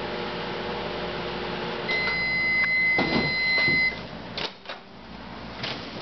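Sharp Carousel microwave oven running with a steady hum, which stops about two seconds in as the timer runs out. The end-of-cycle beep then sounds for about two seconds, followed by clicks and knocks as the door is opened.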